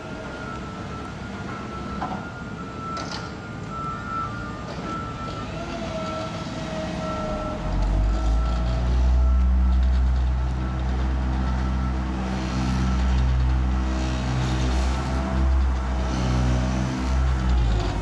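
Diesel engine of a tandem drum asphalt roller compacting fresh asphalt, with a reversing alarm beeping steadily through the first half. About eight seconds in, the deep engine sound gets much louder and stays loud.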